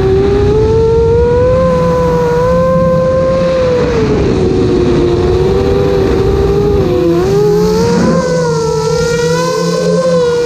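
FPV quadcopter's brushless motors whining as heard from its own onboard camera, the pitch wavering up and down with the throttle, dipping lower twice and rising again near the end.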